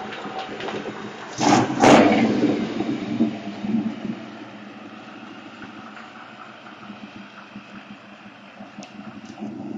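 Pickup truck engine running as the truck drives past close by and pulls away on a dirt road, with two loud rushes of noise about a second and a half in, then a steady engine rumble that slowly fades.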